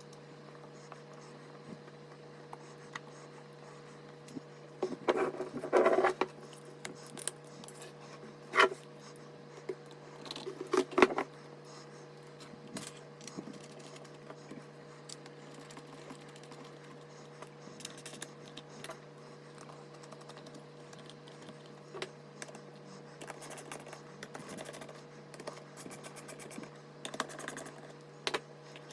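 Hands handling computer parts during a PC build: scattered clicks, taps and scratchy clattering of plastic and metal, busiest about five to six seconds in and again around eleven seconds. A steady low electrical hum runs underneath.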